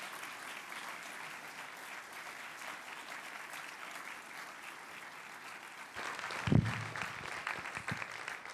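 Audience applauding: a steady patter of many hands clapping. A brief low thump, close to the microphone, comes about six and a half seconds in.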